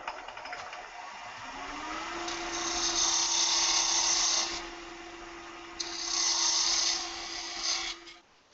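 Wood lathe running with a steady motor whine, while a narrow parting tool cuts a lanyard groove into a spinning cocobolo duck-call blank. There are two hissing cutting passes of about two seconds each, with a short pause between them.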